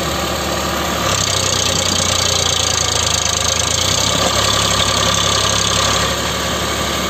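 Eicher 551 tractor's diesel engine running hard under load as its mud-caked rear wheel churns in deep paddy mud, trying to climb out. The engine note steps up about a second in and eases a little near the end.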